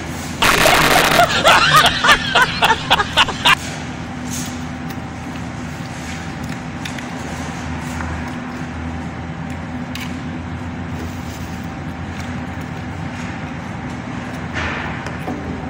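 Steady hum of a restaurant dining room with a low steady tone under it, and a few light clicks of food and foil trays being handled. About half a second in, a loud, high, wavering sound breaks into quick pulses for about three seconds.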